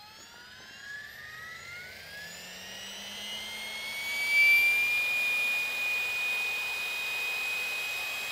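Electric 700-size RC helicopter spooling up under its governor: the Egodrift 4230 420 kV brushless motor and belt drive whine rises in pitch for about four seconds, then holds steady as the head settles at about 1100 RPM.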